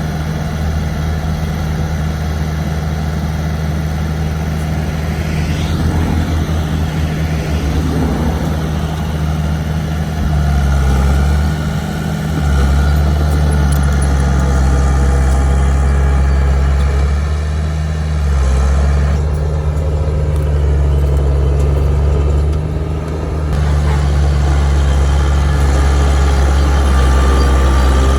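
Diesel engine of heavy earthmoving machinery running steadily with a low drone that swells louder several times.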